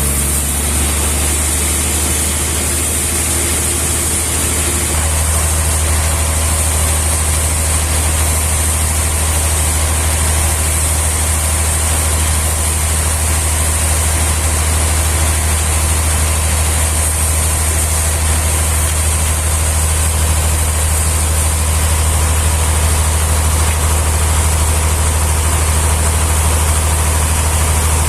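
Heavy engine running steadily at idle, a constant low hum whose note shifts slightly about five seconds in.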